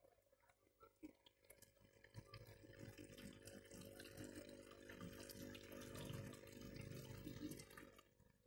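Faint trickling and splashing of water from a small aquarium filter's outflow falling onto the tank surface, over a faint steady hum. It grows louder about two seconds in and fades near the end.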